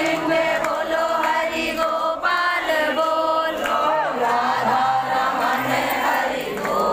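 A crowd of women singing a devotional chant together in unison, many voices holding drawn-out notes.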